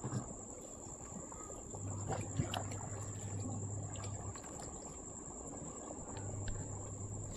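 Crickets trilling: one steady, high-pitched, unbroken tone, with scattered faint clicks over it.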